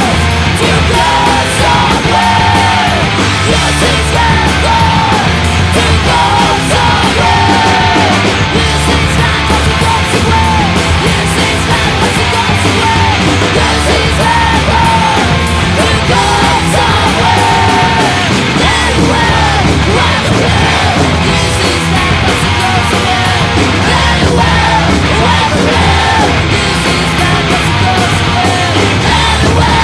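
Crust punk band playing loud and without a break: distorted electric guitars, bass and drums, with shouted vocals and a repeating melodic guitar line.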